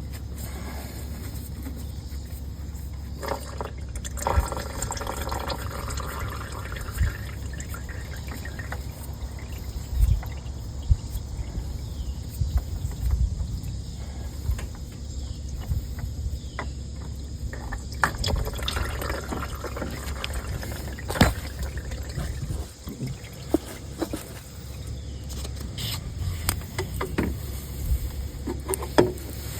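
Used engine oil trickling and dripping into a drain pan as the ATV's spin-on oil filter is taken off. Scattered sharp knocks and clanks from handling the filter and tools.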